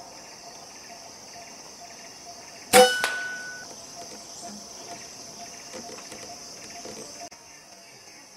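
A single air rifle shot about three seconds in, a sharp crack followed by a short metallic ring. A steady high insect drone runs underneath throughout.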